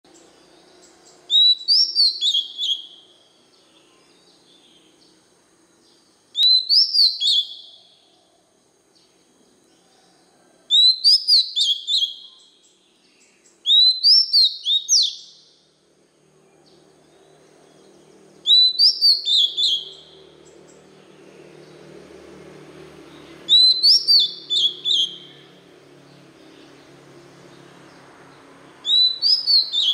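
Oriental magpie-robin singing: the same short phrase of several quick whistled notes, repeated seven times, about every four to five seconds.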